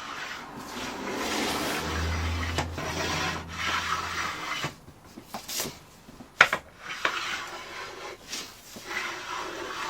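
Hand plane taking repeated strokes along the corners of an oak staff, a series of rasping shaving strokes. There is a sharp knock about six and a half seconds in.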